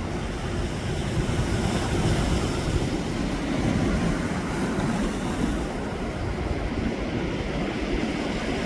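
Sea surf and wind on the microphone: a steady low rumble with a fainter hiss above it, with no distinct events.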